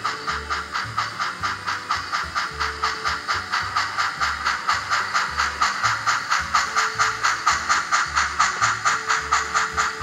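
Steady steam-exhaust chuffing, about four chuffs a second, from the sound system of an HOn3 model Rio Grande Southern 2-8-0 steam locomotive running at an even speed.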